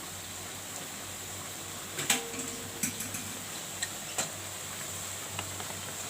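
A few sharp clinks and knocks of kitchen utensils against cookware over a steady low hum. The first and loudest comes about two seconds in and rings briefly.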